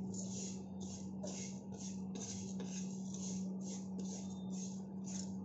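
Steel spoon stirring dry split moong dal in a pan as it roasts, a rhythmic scraping, rustling sound about twice a second. A steady low hum runs underneath.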